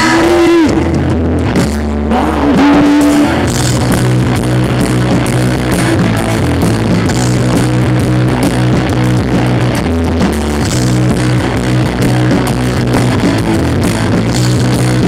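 Live rock band playing: distorted electric guitars, bass guitar and drum kit, amplified through the stage PA, in a passage without singing.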